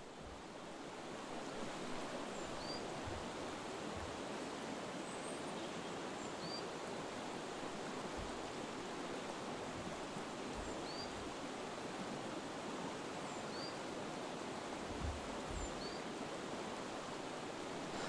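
Shallow river running over stones: a steady rush of water. A bird gives a short, high, rising call every few seconds.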